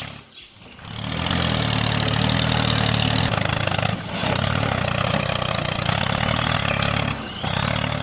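Small engine running steadily with a low even hum, dropping away briefly about half a second in and again around four and seven seconds.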